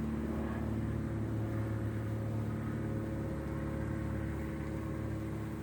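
A steady low engine-like hum with several held tones that drift slightly in pitch, over a faint hiss.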